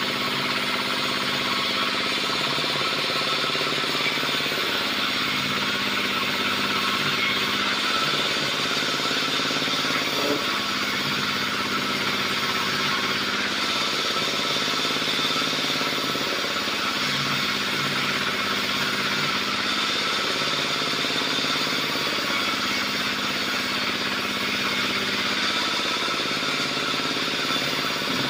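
Engine-driven sawmill bandsaw cutting lengthwise through a log: a continuous sawing hiss over the running engine, whose note shifts every few seconds.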